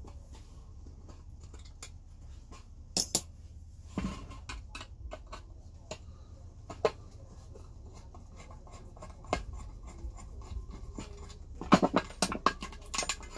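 Screwdriver working the screws on a cast aluminum halogen floodlight housing: scattered small metal clicks and scrapes over a steady low hum, with a quick run of sharper clanks near the end.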